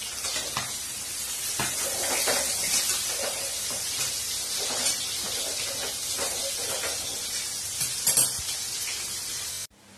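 Pieces of rupchanda (silver pomfret) fish sizzling steadily as they fry in hot oil in a steel kadai, with a few sharp metal clinks from a utensil, loudest about eight seconds in. The sound cuts off suddenly just before the end.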